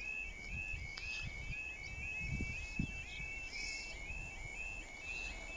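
Level crossing warning alarm sounding: a repeating electronic yelp, a little over two a second, with wind buffeting the microphone now and then.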